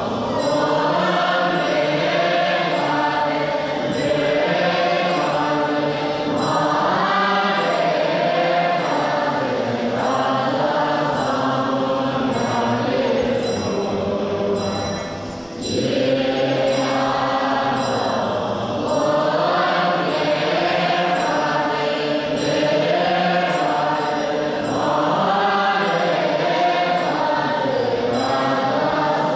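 Tibetan Buddhist monks chanting prayers together in unison, many voices in a continuous chant. There is a short break for breath about halfway through.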